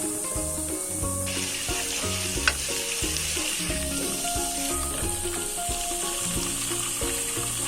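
Garlic paste frying in hot oil in a nonstick pan: a steady sizzle with stirring and a single sharp tap about two and a half seconds in, over background music with a steady beat.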